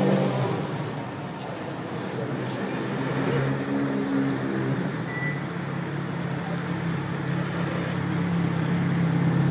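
Motorcycle engine running at low revs, a steady low drone, as the bike rolls slowly.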